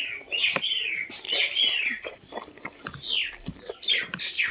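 Close-up chewing of spicy pork and rice, with wet smacking and clicking of the mouth several times a second.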